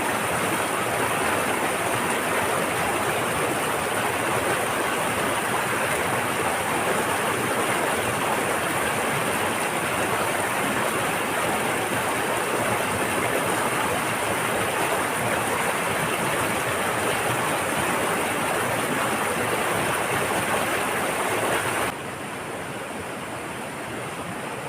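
Steady rush of flowing river water, with a faint high steady hiss above it; about three quarters of the way through, the sound drops abruptly to a quieter level.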